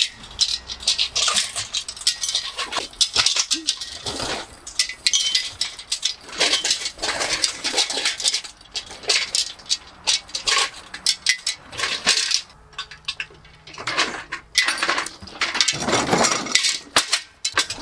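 A folding steel engine hoist (cherry picker) being wheeled over rough ground, its hanging chain and steel frame clinking and rattling in quick, irregular runs, with a short lull about two-thirds of the way through.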